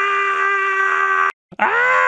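A loud, held 'ahh' shout from a human voice on one steady pitch, cutting off about a second and a third in. After a brief silence the next shout starts, sliding quickly up to pitch and then holding.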